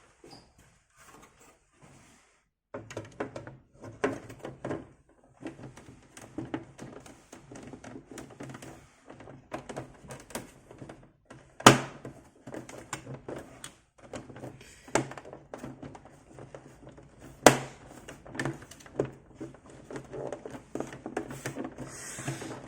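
Amiga 500's plastic case being handled and fitted together, scattered knocks and clicks of plastic parts, with two sharp, louder clicks near the middle. Nearly silent for the first few seconds.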